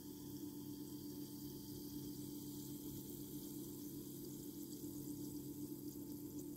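Faint fizzing of an effervescent multivitamin tablet's last bubbles as it finishes dissolving in a mug of water, over a steady low electrical hum.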